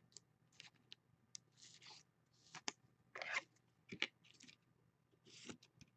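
Faint rustling and light clicks of trading cards and their packaging being handled and set down on a table, in short scattered bits.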